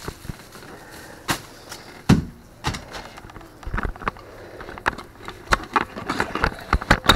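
Irregular knocks, taps and rubbing from gloved hands and a tool working at a hole in drywall, with one heavier thump about two seconds in and quicker clicks and taps near the end.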